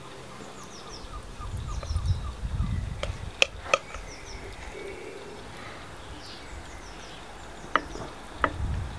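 Banana fritter batter frying in hot oil in a pan, a steady faint sizzle, with small birds chirping repeatedly. Several sharp clicks of a spoon on the pan cut through, two of them near the end as another spoonful of batter goes in, and there are two spells of low rumble.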